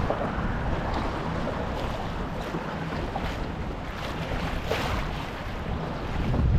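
Wind buffeting the microphone over choppy water lapping against a kayak, a steady low rumble with a few small splashes.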